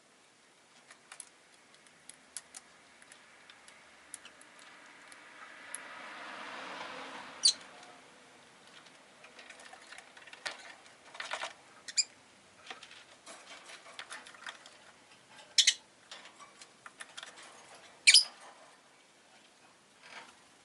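Rosy-faced lovebird giving a few short, sharp, high chirps, the loudest about seven, twelve, fifteen and eighteen seconds in, among scattered light clicks and taps. A broad rush of noise swells and fades again about five to eight seconds in, like a vehicle passing.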